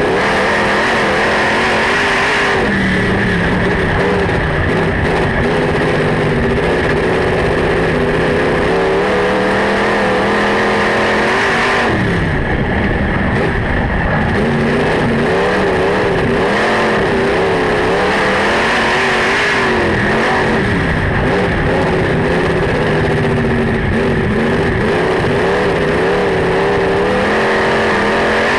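Super Rod race car's engine heard from inside the cockpit, running hard on a dirt oval. The revs climb and fall away over and over, dropping sharply about twelve seconds in and again near the end.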